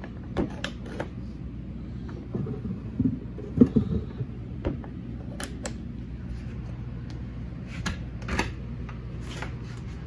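Wooden cabinet doors and drawers with metal push-button catches being opened and shut: a scattered series of clicks and knocks. A steady low hum runs underneath.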